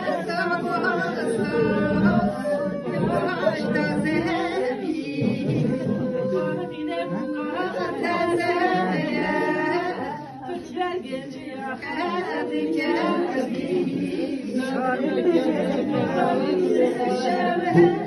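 Several women's voices singing and wailing a funeral lament (ağıt) together, unaccompanied, their wavering lines overlapping, a little quieter about two-thirds of the way through.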